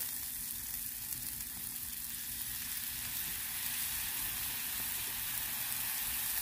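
Food sizzling on a hot flat-top griddle as whipping cream is poured over tortellini and cheese, a steady frying hiss that grows slightly louder through the pour.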